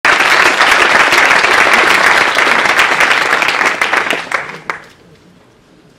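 Audience applauding: dense clapping that thins out to a few last claps and stops about four and a half seconds in.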